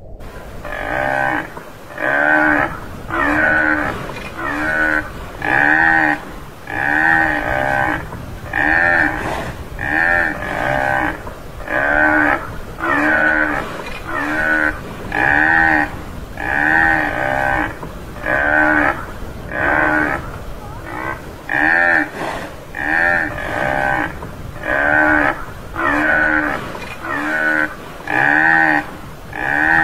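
Tamaraw (Mindoro dwarf buffalo) calls: a short bovine call repeated about once a second, each rising and falling in pitch, in an even, unbroken series.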